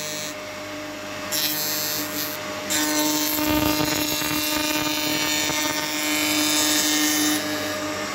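Spindle moulder of a hobby combination woodworking machine running on its new shaft with a steady hum. A board is fed along the fence through the cutter from about three seconds in, which adds a louder, brighter cutting noise until shortly before the end.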